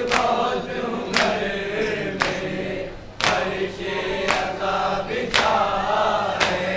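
A group of men chanting a Muharram noha together, with sharp matam chest-beating strikes landing in time about once a second.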